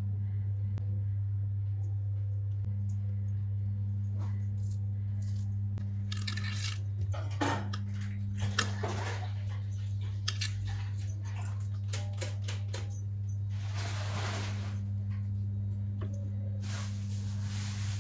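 Steady low electrical hum with scattered clinks and short rustling or scraping noises of kitchen utensils and food being handled, the loudest bursts about midway and near the end.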